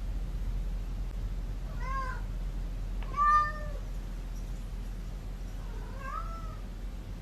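A cat meowing three times, at about two, three and six seconds in, the second meow the loudest.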